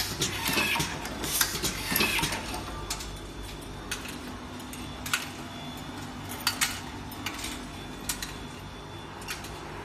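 Automatic screw fastening machine and its blow-type screw feeder at work: dense metallic rattling and clicking for the first two seconds or so, then single sharp clicks about every second over a steady low hum.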